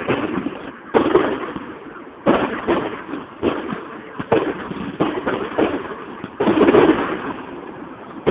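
Fireworks going off in a display: a run of sharp bangs about one every second, each trailing off in a rumbling echo.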